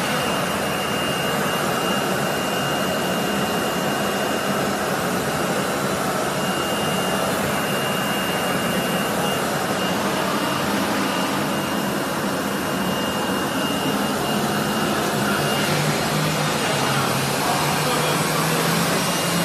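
A pneumatic vacuum feeder (vacuum conveyor) running: its vacuum pump pulls air and powder through the flexible suction hose with a steady rushing noise. A thin high whistle rides over it and drops out about three-quarters of the way through, while a low hum grows stronger near the end.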